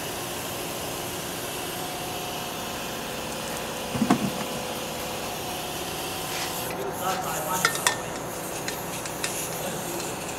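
Handling noises as a red-canister spray gun for parts cleaning is put together: a low knock about four seconds in, then light clicks and scraping as the gun head is fitted onto the canister, over a steady background hum.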